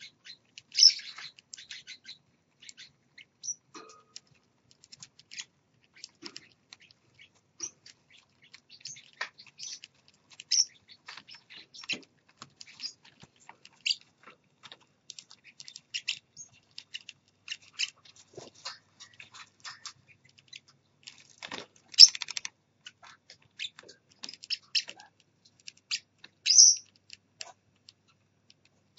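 Small parrots chirping: many short, high cheeps and clicks at an uneven pace, with a few louder chirps about a second in and twice near the end.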